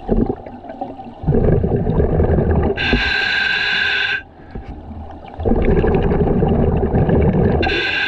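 Scuba diver breathing through a regulator underwater: two breaths, each a low rush of exhaled bubbles and a sharp hiss of air through the regulator.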